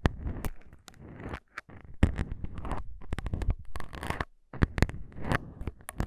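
Plastic syringes handled close up right over the microphones: irregular sharp clicks and scratchy rubbing in short bursts, with brief pauses between them.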